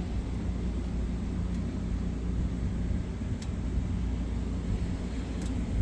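A car running: a steady low rumble with a faint steady hum.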